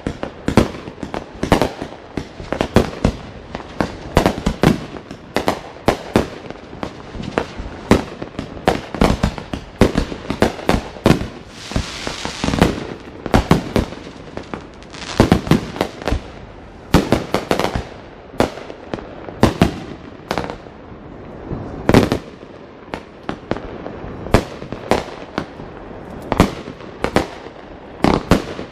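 Fireworks going off in a rapid, irregular string of bangs and pops, with a rush of hissing crackle about twelve seconds in.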